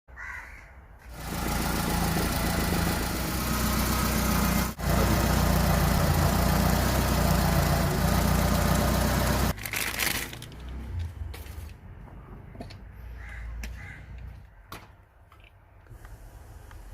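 Maruti Zen's engine running with a misfire. It is loud and steady for most of the first ten seconds, then drops sharply to a quieter, uneven running sound with scattered clicks and ticks.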